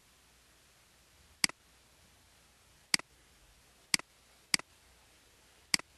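Five sharp computer mouse clicks at uneven intervals, each a quick double tick of the button going down and coming up.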